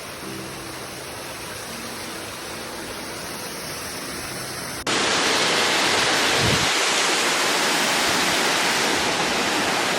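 Waterfall's rushing water, a steady hiss of noise that abruptly jumps louder and brighter about halfway through.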